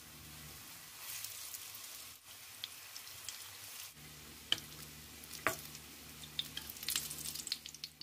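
Potato cutlets frying in hot vegetable oil in a nonstick frying pan: a steady sizzle with scattered crackles and pops, busier in the second half.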